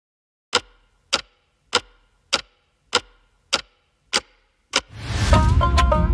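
Eight sharp, evenly spaced ticks a little over half a second apart, like a clock ticking, opening a song. About five seconds in, a rushing swell leads into the instrumental intro of the song, with a deep bass beat and a plucked melody.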